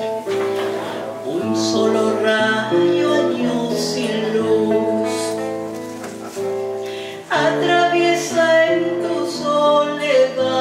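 A woman singing with guitar accompaniment, holding long notes.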